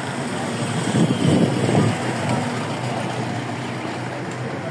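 Street traffic: a small motor vehicle's engine running as it drives past close by, loudest between about one and two seconds in.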